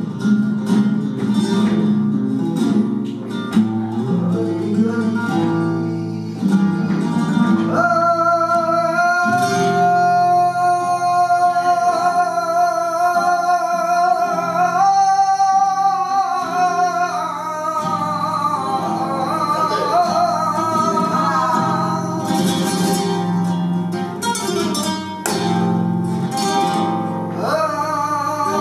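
Flamenco music: plucked acoustic guitar, joined about eight seconds in by a voice singing long, wavering held notes.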